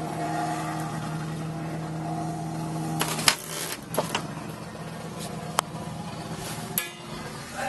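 A steady mechanical hum of several tones, which drops away at a sharp clunk about three seconds in, followed by a few scattered clicks from the excavator cab's fittings.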